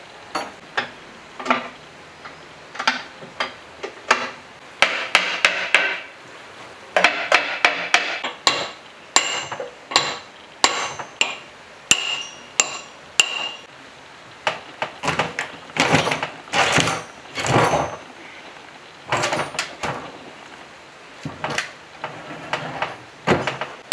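Hammer blows on a steel drift rod driving the rotor shaft out of a generator's end frame: sharp, irregularly spaced metallic knocks, some with a brief ring, with longer, noisier knocks and scrapes in the second half as the end bell comes loose.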